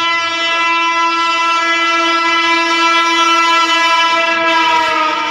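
An approaching Indian Railways express train's electric locomotive sounds one long, continuous horn blast. The pitch drops slightly near the end as the train closes in at speed.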